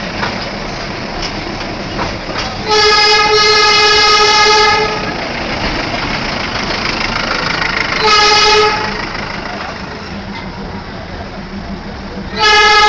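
Darjeeling Himalayan Railway toy train's locomotive sounding three blasts on its horn: a long one of about two seconds, a short one, then another starting near the end. Between the blasts, the steady running noise of the moving train.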